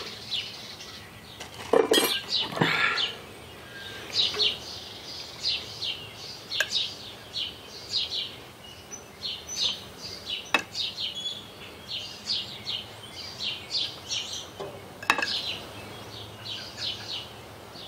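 A spoon clinking and scraping against a white baking dish as spinach stuffing is scooped out, a few sharp clinks spread through, with birds chirping repeatedly in the background.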